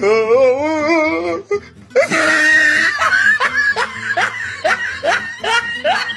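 Human laughter over background music, likely an added soundtrack: a warbling laugh at first, then a run of quick, rising 'ha' sounds about every half second.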